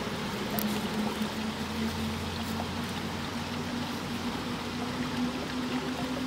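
Steady rushing of flowing stream water, with a faint low hum underneath that creeps slightly upward in pitch.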